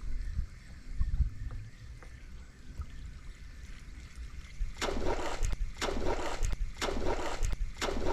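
Water splashing in a steady rhythm, about one splash a second, starting about five seconds in, over a low rumble.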